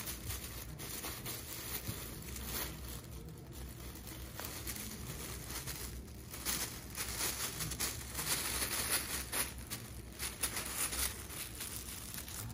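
Foil space blanket crinkling under a small puppy's paws as it walks and scrabbles on it: irregular rustling and crackling, louder and busier in the second half.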